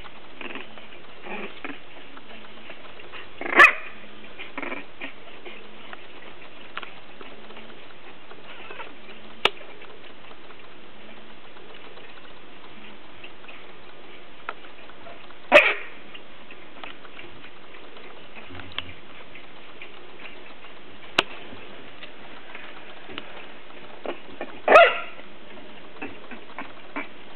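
Three-week-old English Bulldog puppies giving three short, loud yelping cries, spaced several seconds apart, over a steady hiss with a few sharp clicks.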